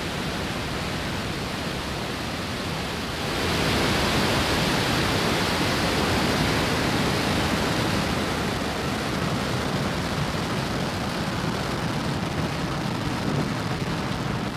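Falcon 9's first-stage Merlin 1D engines running just after liftoff as the rocket climbs off the pad: a steady, dense rocket rumble that gets louder and hissier about three seconds in.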